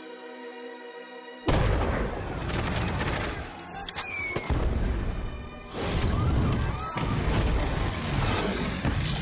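A sustained chord of trailer music, then about a second and a half in a sudden loud blast opens a dense din of battle sound effects, explosions and gunfire over the music, with more sudden surges of noise near the middle and again later.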